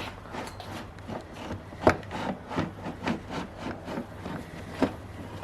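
Heater core being worked out of its heater box: irregular scraping and rubbing with a run of light knocks and clicks, the sharpest about two seconds in and again near the end.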